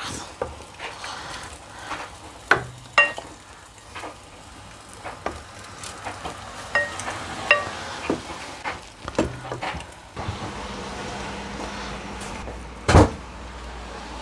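A ladle scraping and knocking against an aluminium cooking pot as chicken and potato curry is served into a ceramic bowl: a string of short clinks, some ringing briefly. After about ten seconds the clinks stop, leaving a low steady hum and one loud knock near the end.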